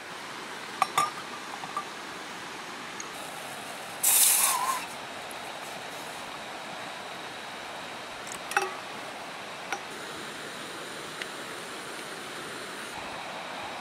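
Steady hiss with a few clicks, a short loud rush of water poured into a metal pot about four seconds in, then small glass clinks of corked glass spice vials in a metal tin, three times near the end.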